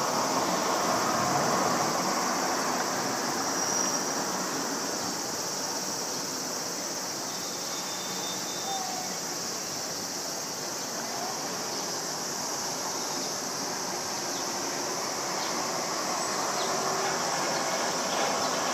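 Distant, steady roar of a climbing Embraer regional jet's twin turbofan engines after takeoff. It eases slightly in the middle and swells again near the end.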